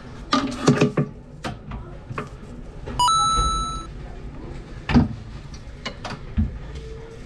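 A single electronic beep lasting about a second, about three seconds in, among scattered clicks and knocks in a reverberant room.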